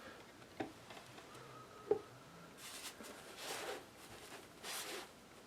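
Faint hand-work sounds: two or three light clicks, then three soft rubbing swishes about a second apart.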